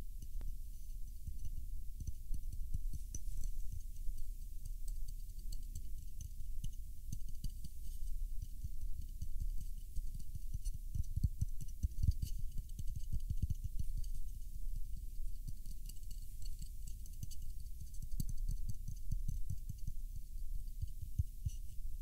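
Wooden taiko drumsticks (bachi) rubbed and rolled against a plush toy's fur, giving soft, irregular low scuffing and muffled knocks.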